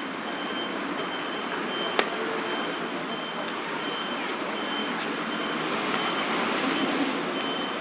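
Steady city road-traffic noise, with a high short pip repeating over and over on top of it and a single sharp click about two seconds in.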